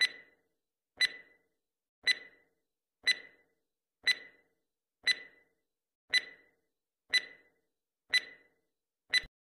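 Countdown timer sound effect: a sharp tick once a second, ten in all, with silence between.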